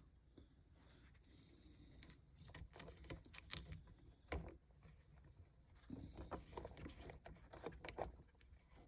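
Faint handling noises: small clicks and rubbing of a 3D-printed PETG-CF ring against a plastic quick-disconnect hose connector as it is worked onto the fitting. They come in two clusters, from about two seconds in and again around six seconds in.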